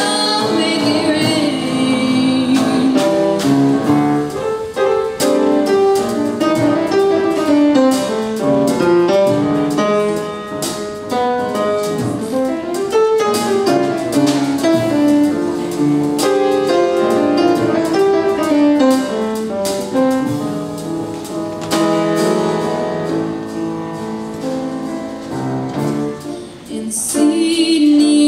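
A young female vocalist singing into a microphone over instrumental accompaniment. The voice drops back through the middle while the accompaniment carries on, and the singing comes back strongly near the end.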